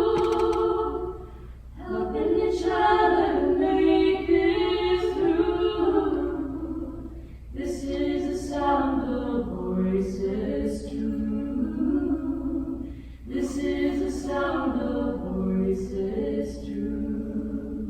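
A choir singing a capella in long, held harmonised phrases, with brief breaks between the phrases.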